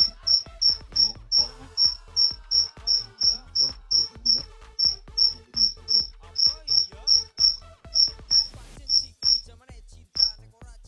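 A cricket chirping loudly and steadily, about three short high chirps a second, with a brief break near the end.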